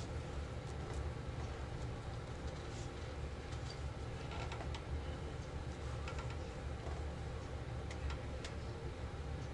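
Scattered light clicks and taps of playing cards being handled and sorted on a table, over a steady low hum.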